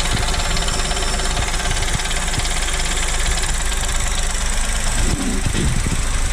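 Chevrolet Onix 1.0 turbo three-cylinder engine idling cold, with the engine-bay noise that comes when the brake pedal is pressed and released. The owner takes it for something brake-related that appears only with the engine cold.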